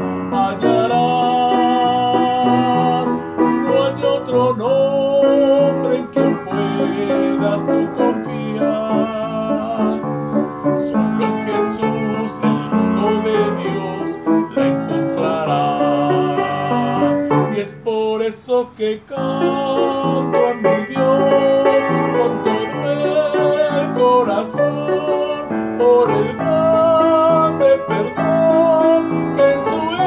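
Digital piano playing a slow melody over chords, the melody notes held with a wavering vibrato; the playing thins out briefly about two-thirds of the way through, then carries on.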